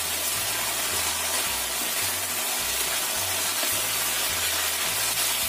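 Chicken pieces sizzling in a wok in a soy and brown-sugar sauce cooked down to a thick glaze, stirred with a wooden spatula: a steady frying hiss.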